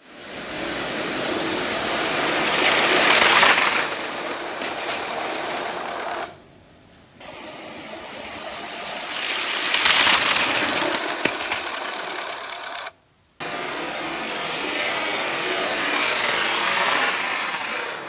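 Battery-powered Lego train motors whirring and wheels rattling along plastic track, swelling as each train draws near, in three separate runs split by brief cuts. The loudest stretch is in the middle run, where a burst of clatter sounds like plastic cars knocking together in a crash.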